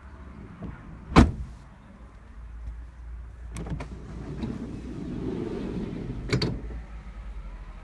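A van door shuts with a loud slam about a second in. Then the Vauxhall Vivaro's side sliding door unlatches with a click and rolls back along its track, ending in a clunk as it catches in the open position.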